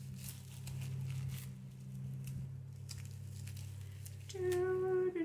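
Plastic cling wrap crinkling and rustling in irregular scrunches as it is unwound from a wrapped item. About four seconds in, a woman starts humming a few steady notes.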